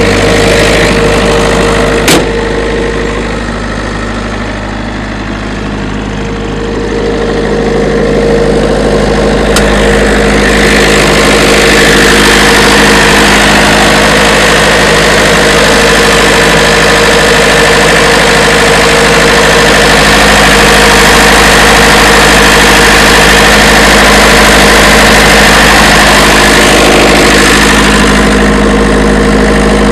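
An engine running steadily at idle, with a sharp click about two seconds in; the sound dips a little for a few seconds, then comes back up with a stronger, higher-pitched hum.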